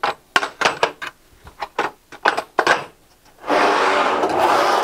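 A run of sharp clicks and knocks as a cut piece of aluminum trim coil is set into a Van Mark Metal Master bending brake. About three and a half seconds in, a steady scraping hiss starts as a trim cutter is run along the brake, ripping the coil to width, and it stops near the end.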